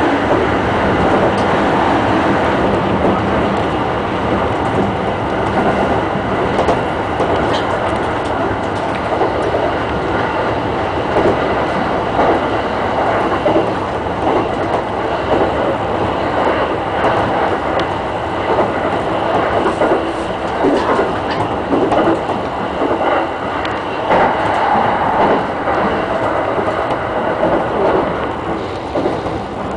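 E217-series electric train running at speed, heard from inside the leading car: a steady rumble of wheels on rail with scattered, irregular clacks from the wheels over the track.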